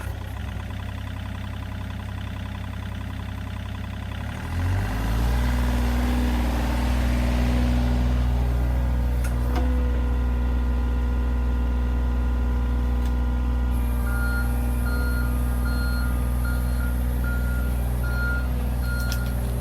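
John Deere 35G compact excavator's diesel engine running, throttled up about four seconds in as the machine is driven on its reinstalled track. From about two-thirds of the way in, a travel alarm beeps steadily.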